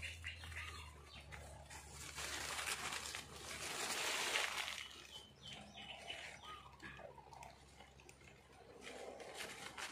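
Leaves and twigs rustling as yanang vine (Tiliacora triandra) leaves are pulled and stripped by hand from a sapling's branches. The rustling is loudest about four seconds in.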